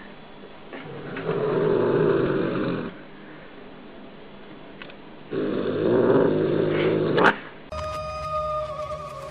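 A cat growling twice, each growl rough and drawn out for about two seconds, the second ending in a short sharp cry.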